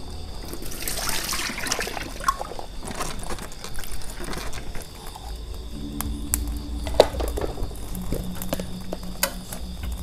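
Water splashing and trickling at a sink as dishes are washed. About halfway in, soft background music begins, with a few sharp clicks of a spoon against the containers as salt and sugar are spooned into a stone mortar.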